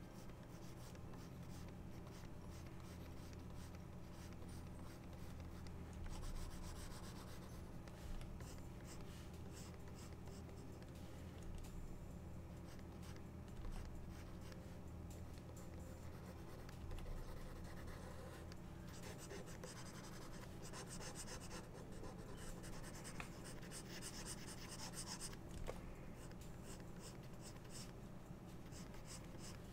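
Pen stylus scratching across a graphics tablet in faint drawing strokes. The strokes come in clusters, busiest in the second half, over a steady low hum.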